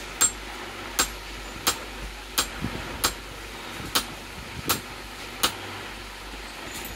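Small hammer striking a hand chisel to cut a design into an iron die block on a steel anvil: eight sharp metallic taps, about one every three-quarters of a second, stopping about five and a half seconds in.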